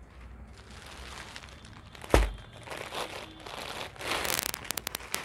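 Clear plastic packaging crinkling as a packed suit is handled and opened. A sharp thump comes about two seconds in, and a quick run of sharp crackles near the end.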